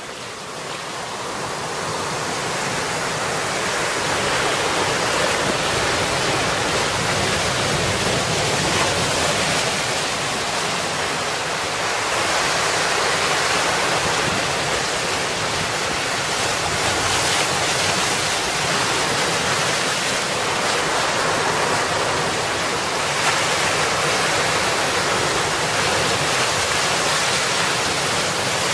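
Sea surf breaking and washing over rocks, with wind: a steady rushing noise that fades in over the first few seconds.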